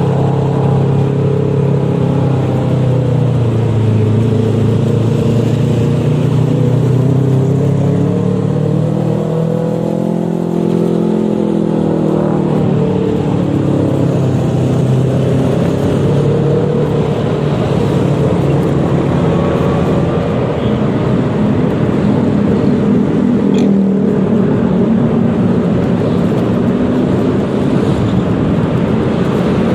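Motor scooter riding in traffic: a single-cylinder engine running, its pitch rising and falling as it speeds up and eases off, over steady road and wind noise.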